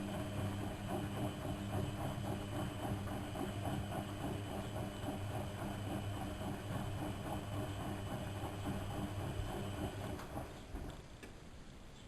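Lloyds 825 washing machine running, its motor humming steadily under a regular rhythmic knocking from the turning drum; the motor cuts out about ten and a half seconds in, leaving a much quieter background.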